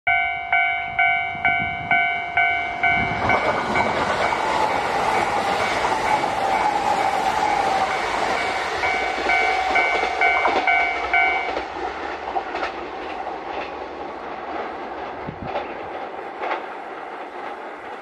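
Japanese level-crossing warning bell ringing about twice a second as a Kintetsu electric express train passes at speed, with a loud rush of wheel and rail noise. The bell stops about two-thirds of the way through, and the train noise fades into scattered wheel clacks over the rail joints.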